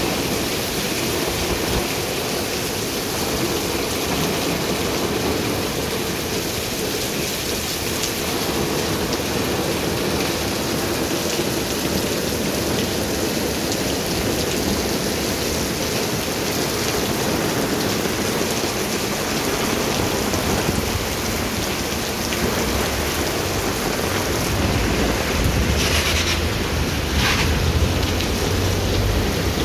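Steady rain falling in a city, an even hiss throughout. A low rumble builds near the end, with a couple of short sharper sounds on top.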